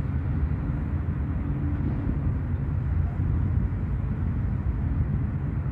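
Steady low rumble of outdoor background noise, with no distinct events on top.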